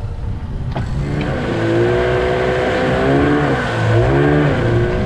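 Inflatable dinghy's outboard motor running at speed, its pitch wavering and dipping and rising a couple of times near the end, over the rush of wind and water.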